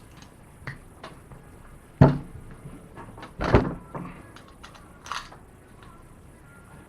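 Workbench handling noises: a few clunks and knocks of objects being moved and set down, two louder thuds about two seconds in and a second and a half later, with lighter clicks between.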